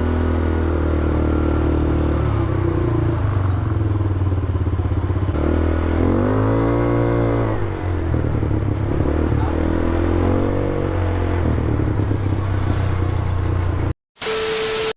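A 200cc ATV engine running at a low idle, revved up and back down about six seconds in and again about ten seconds in. The engine sound cuts off abruptly near the end, followed by a brief burst of noise with a steady tone.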